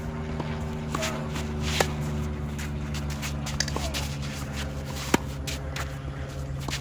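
Tennis rally: sharp racket-on-ball hits about three seconds apart, with shoes shuffling and scuffing on the court, over a steady low mechanical hum.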